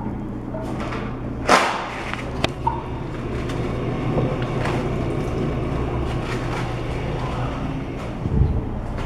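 A steady low hum with a loud knock about a second and a half in, followed by a few lighter knocks and handling rustles.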